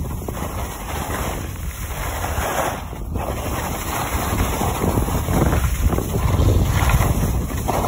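Wind buffeting a phone's microphone while skiing downhill at speed, with the skis hissing and scraping over groomed snow through turns. The rushing noise swells and eases, and grows a little louder in the second half.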